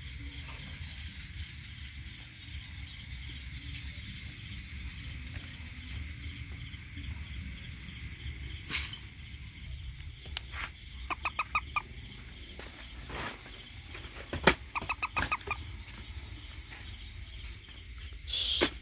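A toad calling in two short pulsed trills, each about a second long, roughly eleven and fifteen seconds in, over a steady low rumble. A few sharp knocks and a brief rushing noise near the end are the loudest sounds.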